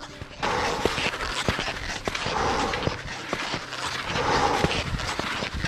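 A skier breathing hard from the exertion of climbing a steep slope: heavy breaths swelling about every two seconds, over a constant crunch and click of skis and poles in snow.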